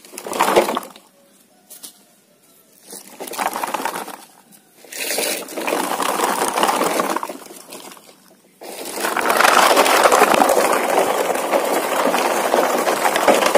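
Plastic toy dump truck rolling and scraping over gritty dirt ground: a grainy scraping rattle in short stretches, then continuous from a little past halfway.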